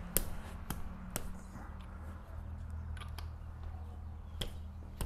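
Scattered light clicks and taps from hand tools and engine parts being handled during an engine teardown, about half a dozen spread over the few seconds, over a low steady hum.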